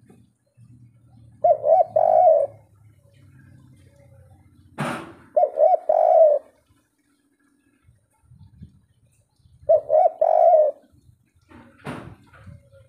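Spotted dove cooing: three coo phrases of the 'kuk 3' kind, each a few quick notes, come about four seconds apart. A short sharp knock sounds between the first two phrases, and another shortly before the end.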